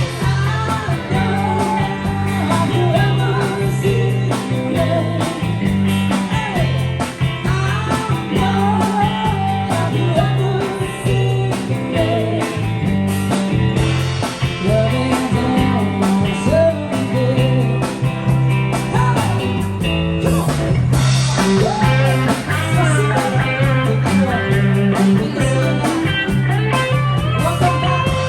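Rock song playing: a steady bass line and guitar with a singing voice over them.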